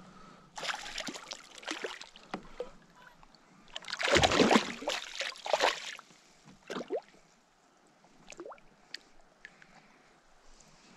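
A hooked small northern pike thrashing at the surface beside a kayak, splashing in two bursts, the louder one about four seconds in, followed by a few light clicks.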